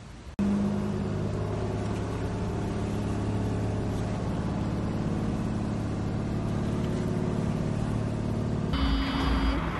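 Engine of a Philippine outrigger boat (bangka) running at a steady pitch, a constant drone heard from on board. It starts suddenly just after the beginning, and the sound changes near the end.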